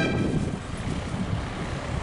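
Low, noisy rumble of bus engines and traffic, with wind buffeting the microphone.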